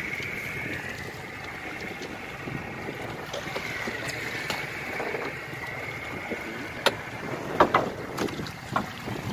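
Steady wind and sea-water noise around a small fishing boat, with a faint steady high whine. In the last few seconds, several sharp splashes and knocks as a hooked swordfish thrashes at the surface beside the hull.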